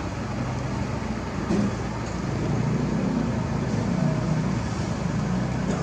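Heavy diesel engines and road traffic running steadily, a continuous low rumble.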